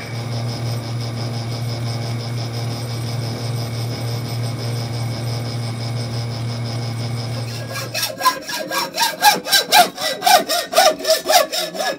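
Metal lathe running with a steady hum while boring out a thick brass blank. About eight seconds in, the hum gives way to a hand hacksaw cutting the corners off the brass plate, in quick, even strokes.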